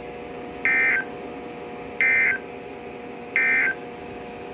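NOAA Weather Radio SAME end-of-message data code: three short, shrill warbling data bursts about 1.3 seconds apart, signalling the end of the alert. A steady low hum runs underneath.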